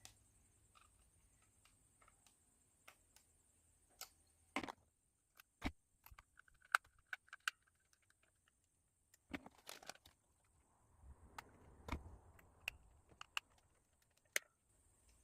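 Sparse small clicks and taps from hands working small screws and a screwdriver into a plywood kit, with a soft rustle of handling in the later part.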